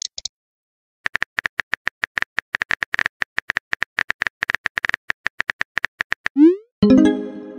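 Simulated phone keyboard clicks from a texting-story app as a message is typed, a rapid run of short ticks about ten a second lasting some five seconds. Near the end come a rising swoop and a louder pitched pop-like sound effect.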